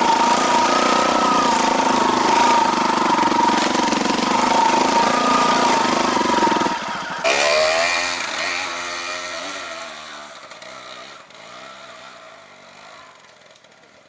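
Off-road trail motorcycle engine running steadily close to the microphone for about seven seconds; then, after a sudden change, another trail bike revving up and down as it climbs, growing fainter toward the end.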